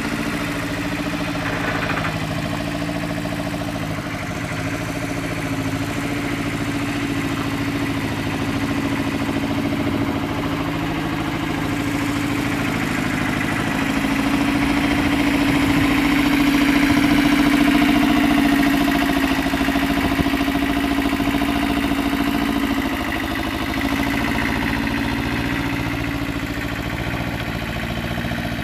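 Engine of an old wheeled mini excavator running steadily as the machine drives, growing louder for a few seconds about halfway through.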